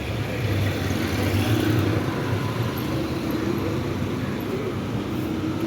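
Road traffic: motor vehicles running past, a low engine rumble that swells about a second in and then settles.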